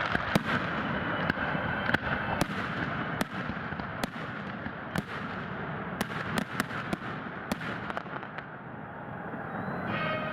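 Fireworks display: scattered sharp bangs over a continuous crackle, with the bangs thinning out and the noise easing off near the end.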